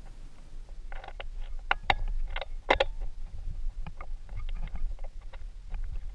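Irregular light clicks, taps and short scrapes of fingers and metal parts, as the fuel quantity valve's mounting bolts are threaded in by hand deep in the engine bay, over a low steady rumble.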